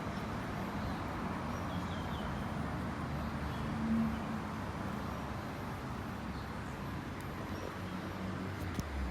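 Steady low background rumble and hiss, with a brief low hum about four seconds in and a faint click near the end.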